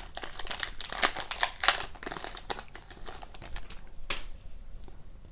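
Hockey card pack wrapper crinkling as it is torn open: a quick run of crackles for the first couple of seconds, then a few scattered ones, the last about four seconds in.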